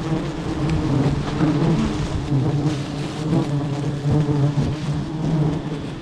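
Swarm of honeybees buzzing loudly close to the microphone, a steady drone that wavers slightly in pitch; the bees are stirred up from a wild nest being cut for honey.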